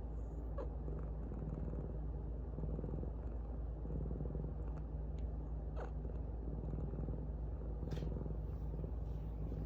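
A domestic cat purring steadily as a continuous low rumble, picked up close by a phone resting on a lap beneath it, with a few faint clicks.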